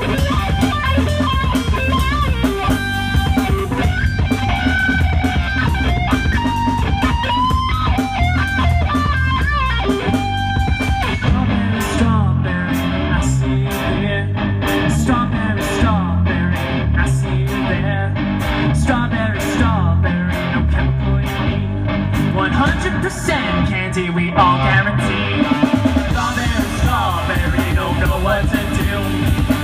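A live rock band playing: electric guitars over a drum kit and bass, with a melodic guitar lead in the first ten seconds or so.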